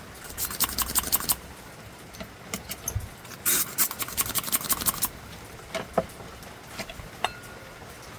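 Hands handling plastic printer parts: two quick flurries of sharp clicks and scrapes, the first about half a second in and the second, louder, about three and a half seconds in, with a few scattered ticks between and after.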